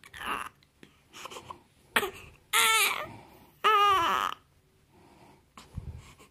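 Newborn baby fussing in short whimpers, then giving two loud, wavering cries of about half a second each past the middle.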